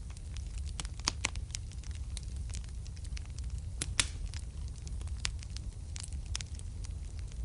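Wood fire crackling in a fireplace: scattered sharp pops and snaps over a steady low rumble, the loudest pop about four seconds in.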